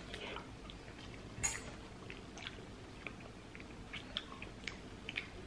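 Quiet chewing of a spoonful of jelly dessert with an oat base, with scattered faint clicks and one sharper click about a second and a half in.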